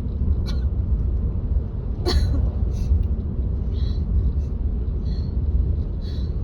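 A woman coughing short, throaty coughs several times over the steady low rumble of a car cabin on the road, the loudest cough about two seconds in. These are the coughs of a chest cold with phlegm caught in the throat that won't come up.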